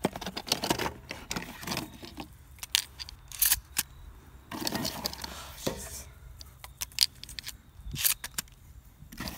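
Shotgun shells being thumbed into the magazine tube of a Mossberg 500 pump shotgun: a run of irregular metallic clicks and scrapes.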